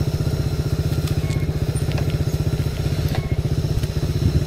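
Aveta Ranger Max cub-style motorcycle's single-cylinder engine running with a steady, rapid firing beat, growing louder and rougher near the end.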